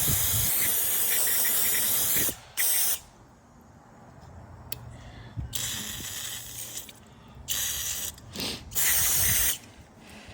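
Aerosol choke cleaner sprayed onto a Briggs & Stratton carburetor's choke shaft: one long spray of a bit over two seconds, then several shorter bursts. It is washing away the debris that has the auto choke binding.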